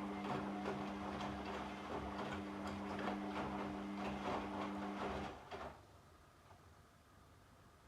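Washing machine running: a steady motor hum with the laundry tumbling and knocking in the drum, until the motor stops about five seconds in.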